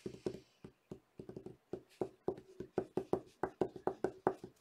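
A run of light taps on the tabletop from hands handling trading cards. They are irregular at first, then settle about halfway in into an even rhythm of about four or five taps a second.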